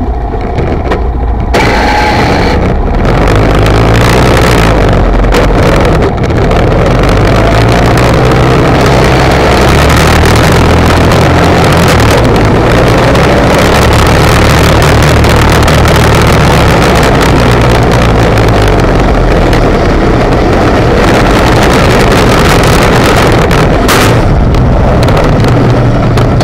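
ATV engine running steadily under load while its steel plow blade scrapes snow and slush off a driveway, with wind noise on the microphone.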